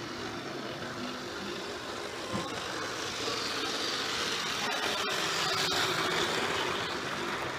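Model railway train, a Class 50 diesel locomotive hauling coaches, running along the track: a motor hum and wheel rumble that grows louder from about three seconds in as the train approaches and passes close by.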